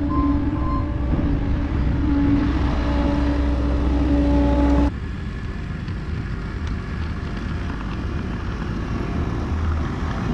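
Heavy equipment engine running steadily, with a back-up alarm beeping in the first second. About halfway through it cuts abruptly to another machine's engine running a little quieter.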